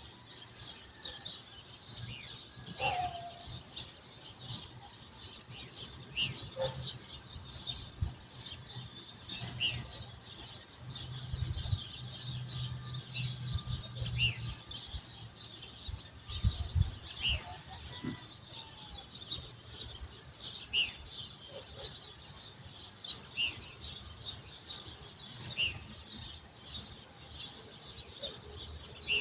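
Many small birds chirping and twittering together in a dawn chorus, with short high calls overlapping throughout. A faint low rumble sits underneath and swells a little around the middle, with a few soft low thuds.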